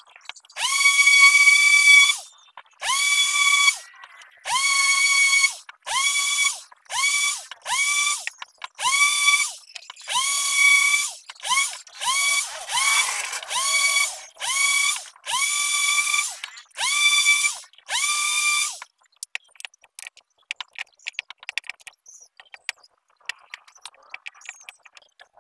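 Random orbital sander sanding wooden pieces, heard in about a dozen short runs that each start with a quick rise in pitch and stop abruptly. Light clicks and knocks of wood being handled follow in the last few seconds.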